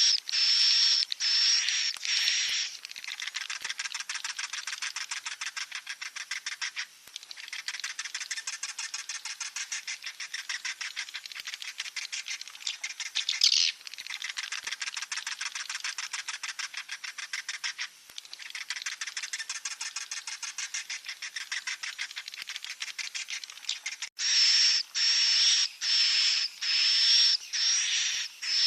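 Swiftlet chicks calling. Loud, high calls repeat about one to two times a second; from about two and a half seconds in they give way to a quieter, fast, buzzing chatter that pauses every few seconds, and the loud repeated calls return near the end.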